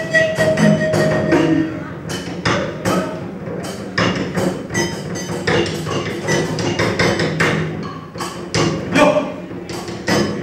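Live traditional Vietnamese ensemble music accompanying a water puppet show: quick, uneven percussion strikes throughout, with a held melodic note fading out in the first second or so.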